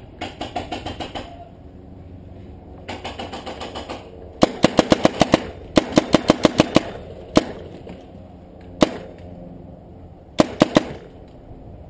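Paintball marker firing sharp pops in rapid bursts of about eight shots a second, then single shots and a quick string of three near the end. In the first few seconds there are softer, faster strings of pops.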